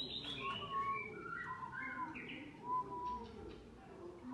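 Ornamental songbirds singing: a busy run of short whistled notes, many sliding down in pitch, thickest in the first two seconds and again near the end.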